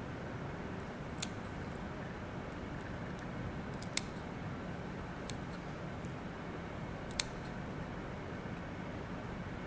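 Fine dissecting scissors snipping through a crayfish's tail cuticle: a few sharp clicks, the clearest about a second, four seconds and seven seconds in, over a steady low background hiss.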